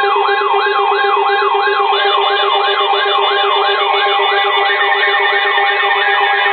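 Electronic siren in a fast yelp, its pitch sweeping up and down about three times a second, over several steady held tones.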